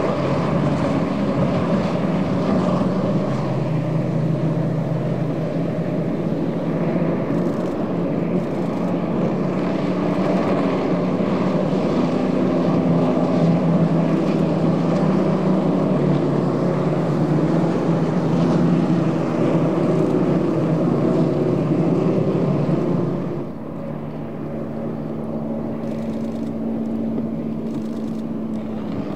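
Several racing engines running hard together, their overlapping notes shifting up and down in pitch. About 23 seconds in, the sound drops a little and one steadier engine note stands out.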